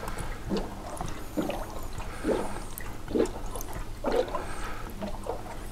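Water gurgling in a 1973 Range Rover V8's cooling system as it is filled by hand, in separate gulps about once a second over a low hum: air working out of the system while it is topped up.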